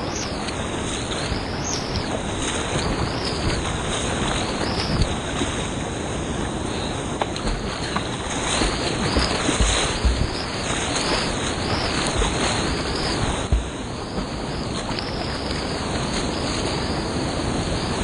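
Whitewater rushing and churning at the foot of a waterfall, heard up close as a steady loud roar of water, with a few low thumps on the microphone about ten and thirteen seconds in.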